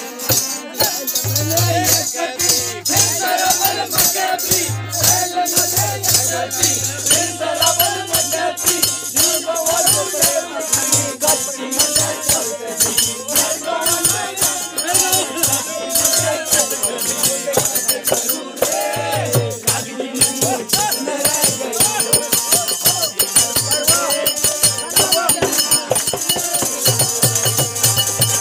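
A group singing a festive folk song to dense, rapid rattling and jingling percussion and hand-clapping, with a deep drum beat that comes and goes.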